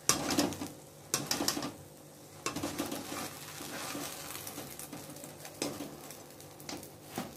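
Steel spatula scraping and knocking against a non-stick kadhai as a fried egg paratha is lifted out of the oil, a handful of separate scrapes and clicks over a faint sizzle.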